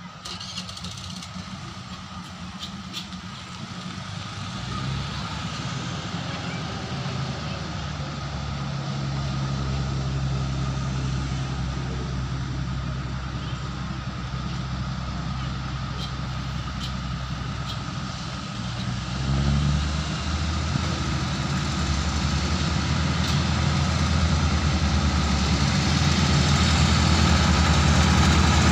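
Diesel railcar engines, growing steadily louder as the train approaches, with a sudden step up in the engine note about two-thirds of the way through.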